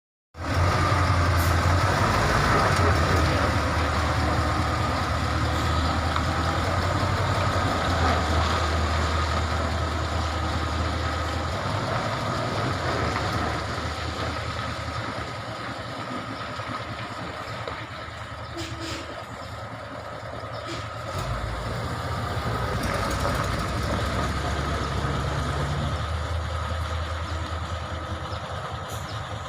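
Heavy diesel engine of a concrete truck running under load, its low drone swelling and easing off a few times, with a steady high whine over it.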